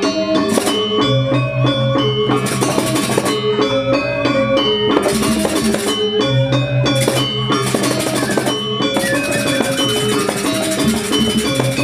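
Balinese gamelan semar pegulingan music: bronze metallophones play a quick stepping melody over drums, with stretches of cymbal clashing and a low pulsing gong tone that comes and goes.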